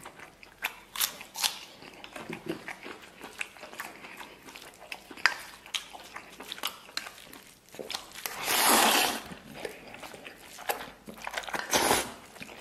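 Close-miked eating: chewing and lip smacking on mouthfuls of mixed rice, with chopsticks clicking against a steel basin. A louder noisy slurp lasts about a second, roughly two thirds of the way through.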